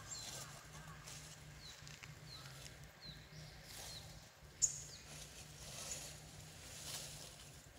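A bird repeats a short, high, falling chirp several times in the first half over light outdoor ambience, with a single sharp click a little past halfway.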